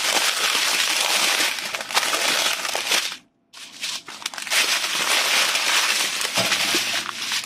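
Strips of small plastic bags filled with diamond-painting drills being handled and crumpled: a close, dense crinkling of plastic with the drills shifting inside. It comes in two stretches, broken by a brief pause about three seconds in.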